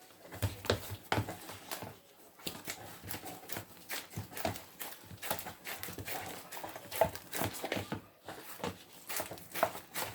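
Irregular knocks and thuds, about two or three a second, of a spoon turning and pressing microwaved eba (gari dough) against the bowl.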